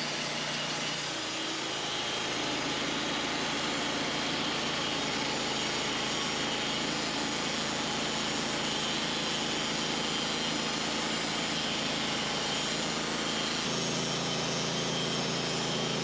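Wood-Mizer band sawmill running steadily, its engine driving the band blade through a honey locust log; a low engine hum grows stronger about 14 seconds in.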